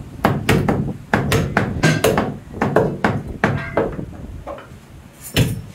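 Heavy meat cleaver chopping through beef bone on a wooden chopping block: rapid sharp blows, about three to four a second, easing off briefly before two loud strikes near the end.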